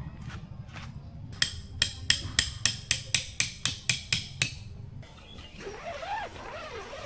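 A quick run of about a dozen hammer blows, roughly four a second, for about three seconds, starting a little over a second in.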